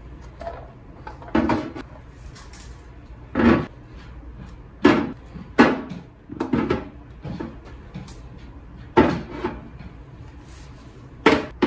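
Several separate knocks and clunks of kitchen storage being handled, like containers being set down and cupboard doors opening and closing, spaced a second or more apart.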